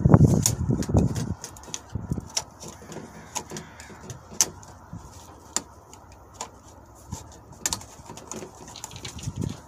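Steel tape measure blade rubbing and clicking against a car door frame as it is fed through the gap into the car. There is a louder low rumble in the first second, then scattered light ticks.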